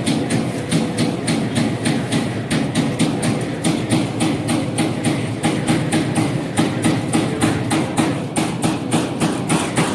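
CNC turret punch press punching sheet metal: the ram strikes in a fast, steady rhythm of sharp knocks, several a second, over the machine's steady hum.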